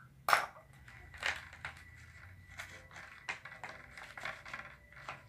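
Glue slime being stirred as borax activator is worked in: a run of irregular sticky clicks and crackles, the loudest about a third of a second in.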